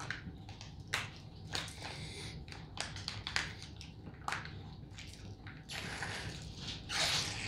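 Kool-Aid Jammers foil drink pouches crackling and crinkling as they are squeezed and sucked dry through their straws, with scattered sharp clicks and a longer rustle near the end.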